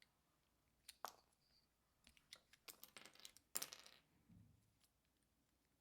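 Small hard plastic Rubik's cube pieces clicking and clattering as the cube is handled and pried apart: a few sharp clicks, then a quick cluster of them and a louder clatter, ending with a soft low thump.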